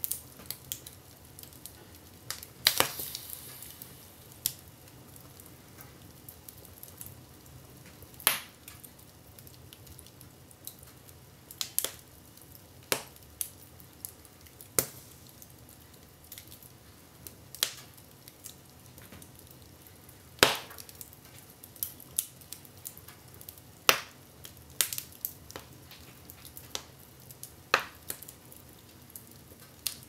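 Wood fire crackling in a fireplace: irregular sharp pops and snaps from the burning logs, one to several every few seconds, over a faint steady hiss, with the loudest snap about two-thirds of the way through.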